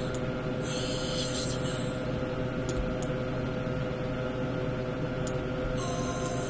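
Steady electrical hum over a constant background noise, with a few faint clicks and two short high hissy patches.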